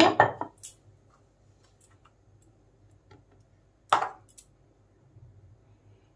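Steel spoon working a thick milk batter onto a slice of bread: a few faint clicks and one sharper tap about four seconds in.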